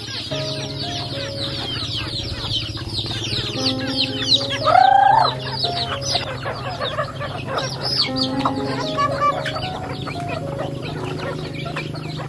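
A flock of free-range chickens feeding: many rapid, high, falling peeps from chicks over hens clucking, with one louder drawn-out call from a bird about five seconds in. Soft background music with held notes runs underneath.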